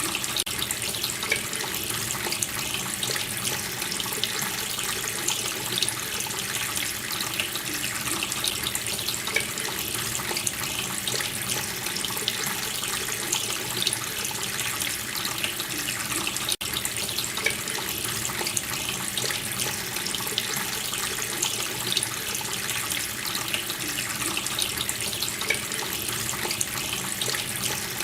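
Water running steadily from a tap and splashing, with a split-second break about 16 seconds in.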